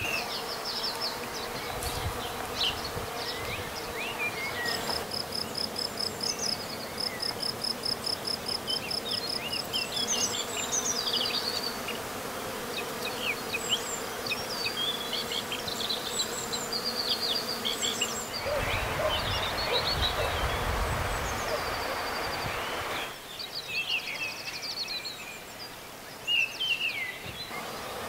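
Bees buzzing steadily among flowering cherry blossoms, with small birds chirping and trilling above the hum. For a few seconds past the middle a louder rushing noise rises over them.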